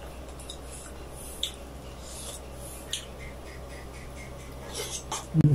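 Close-miked eating sounds: soft wet rubbing and smacking as a sauced piece of chicken hamonado is dipped and bitten into, with scattered small crackles. A loud low thump comes just before the end.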